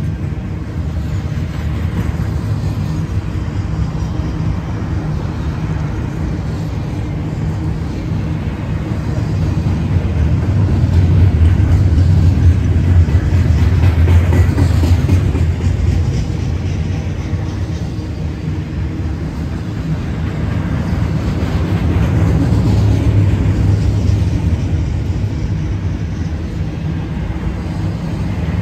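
BNSF double-stack container freight train rolling past, a steady low rumble of wheels on rail that swells twice.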